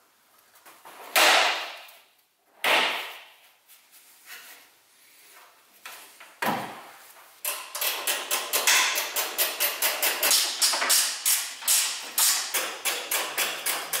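Hand tools working at a car's front end. A few separate scrapes and knocks come first, then from about halfway a quick, even run of ratchet strokes, about four a second, as a fastener is turned.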